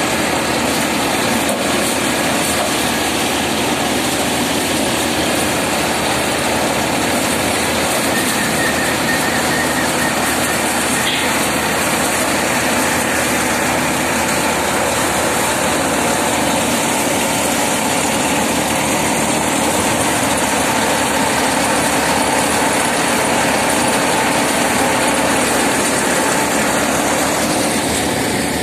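AMAR power paddy thresher running steadily as paddy is fed into its threshing drum, a constant loud machine noise with an engine running in it.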